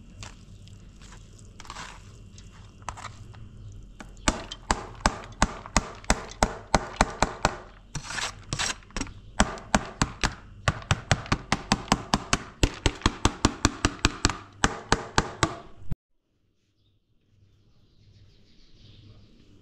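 Hammer strikes, a few scattered knocks at first, then a fast steady run of about four blows a second, each with a short ring. About four seconds from the end the sound cuts off abruptly, leaving a faint room sound.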